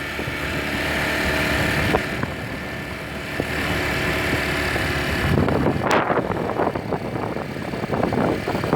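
A road vehicle's engine running as it travels along, with a steady hum. From about five seconds in, an uneven rushing noise grows over it.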